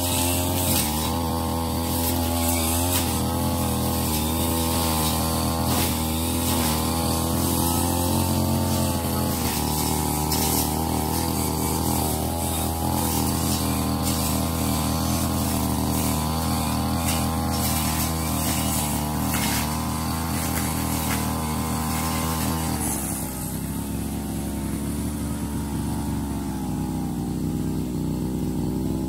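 Ogawa CC33 two-stroke brush cutter with a metal blade running steadily at working speed, then settling to a lower engine speed about three-quarters of the way through.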